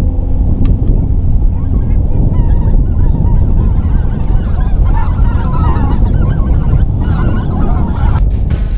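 A flock of geese honking, with many overlapping calls that grow busier from about three seconds in, over a heavy low rumble of wind on the microphone.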